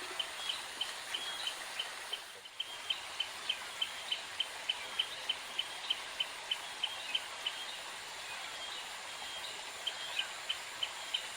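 A small bird repeats one short high note over and over, about three times a second, over a steady background hiss. The notes stop for about two seconds in the latter part, then start again.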